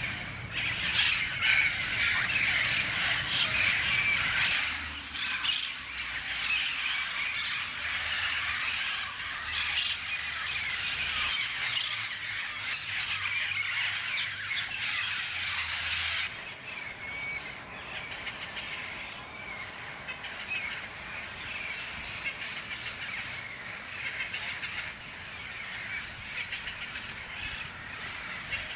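A flock of yellow-headed Amazon parrots calling constantly, many harsh calls overlapping. The calls become quieter and thinner a little past halfway.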